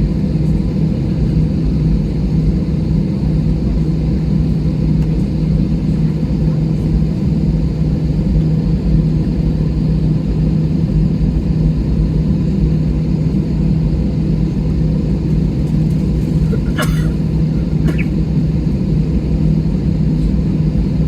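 Steady low cabin hum of an airliner holding on the ground with its engines idling and cabin air running. Two brief clicks near the end.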